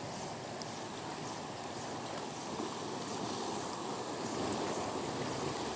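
Shallow sea water lapping and washing steadily at the shoreline.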